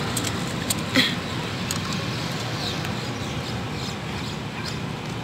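Light clicks and knocks of a hex key and screws as the plastic recoil-starter housing is fitted back onto a small four-stroke engine, the sharpest knock about a second in, over a steady low background rumble.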